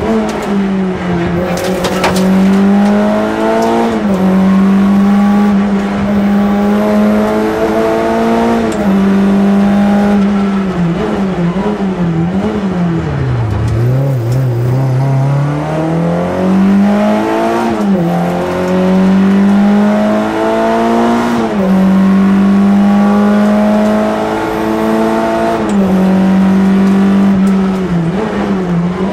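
Citroën AX GT rally car's four-cylinder engine heard from inside the cabin, held at high revs on a special stage. The pitch dips and climbs again several times with gear changes, and about halfway through it falls right down under braking, then climbs back up through the gears.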